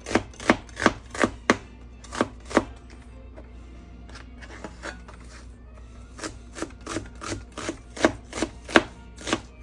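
Kitchen knife chopping an onion on a wooden cutting board: sharp knocks of the blade striking the board, about three a second, in two runs with a pause of a few seconds between.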